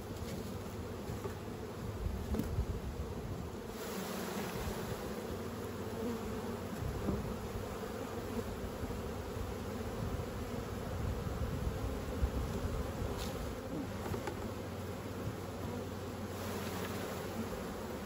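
Honey bees buzzing around an open hive: the steady drone of many wingbeats from a mass of bees in the air and on the frames.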